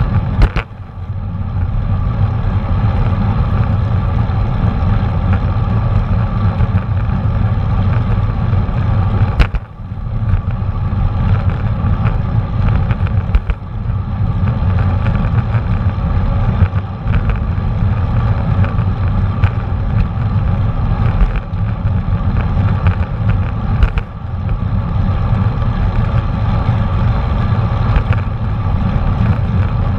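Steady wind rush and road noise on the microphone of a GoPro Hero 4 Black riding along on a bicycle, with scattered small knocks from bumps. The noise eases briefly a few times, around ten seconds in and again near the middle and later on.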